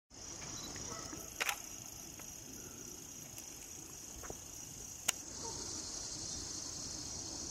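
A steady, high-pitched chorus of insects in summer woodland beside a pond. Two sharp clicks stand out, about a second and a half in and again about five seconds in.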